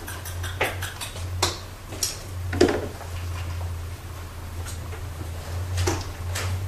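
Irregular light knocks and clicks, about a dozen, over a steady low hum; the loudest knock comes about two and a half seconds in.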